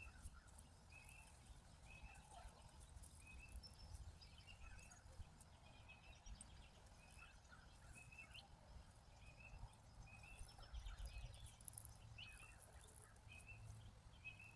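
Faint yard ambience with a bird giving a short call over and over, evenly spaced a little more than once a second.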